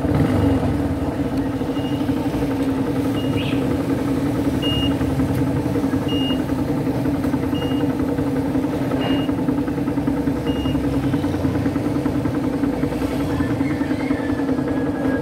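Motorcycle engine idling steadily while the bike stands still. A short high beep repeats about every second and a half through the first two-thirds.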